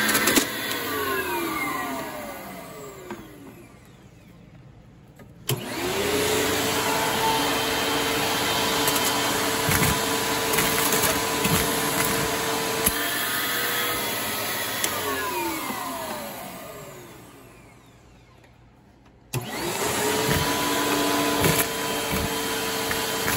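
Riccar 8905 vacuum cleaner switched off twice, its motor whine falling away as it spins down. Each time it is switched back on a few seconds later and comes up to speed at once. While it runs there are scattered sharp clicks.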